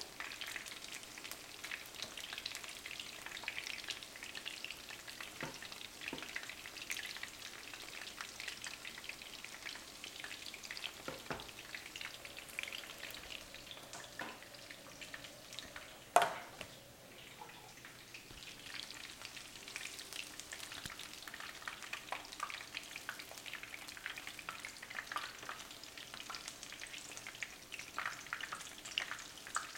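Batter-coated chicken nugget pieces frying in hot vegetable oil in a frying pan: a steady crackling sizzle full of small pops. A single sharp knock about halfway through.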